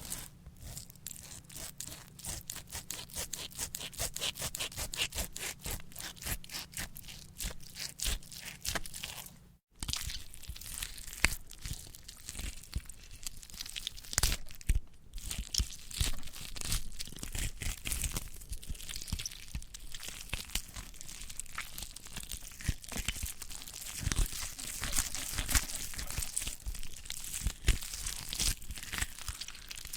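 Gore sound effects of tearing and crunching, as of flesh and bone being torn apart: dense crackling with sharp snaps, in two takes split by a brief silence about ten seconds in.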